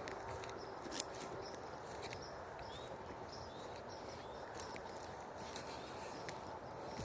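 Outdoor ambience: a steady background hiss with scattered light clicks and rustles, one slightly louder about a second in, and faint short high chirps.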